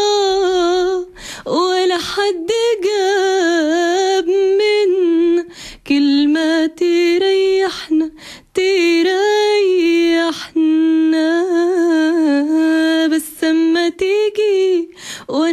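A woman singing an Arabic song without accompaniment: long held notes with vibrato and ornamented, wavering melismas, sung in phrases with short breaks between them.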